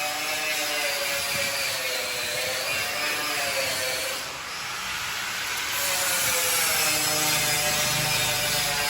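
CNC metal-cutting machine running: a motor whine slowly rising and falling in pitch as the gantry moves, over a steady hiss, dipping briefly about halfway through.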